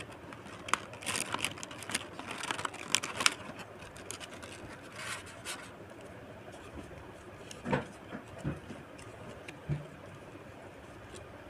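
Thin plastic packaging crinkling and crackling in a quick run of sharp crackles over the first few seconds as hands handle it, then quieter rustling of paper cards with a few soft knocks.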